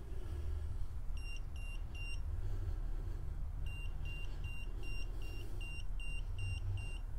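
Handheld EMF meter beeping in short high bleeps, three at first, then after a pause a quicker run of about nine at roughly two and a half a second: its alert that it is picking up an electromagnetic field reading, which the investigator ties to his phone or to a spirit.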